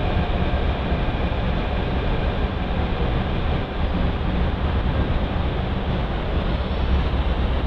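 Inside-the-coach running noise of a Jaipur Metro train pulling into a station: a steady low rumble with a rushing wash over it.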